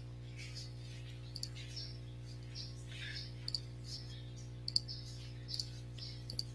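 Faint room tone: a low steady hum, with scattered short high-pitched chirps and a few paired sharp clicks from about three seconds in.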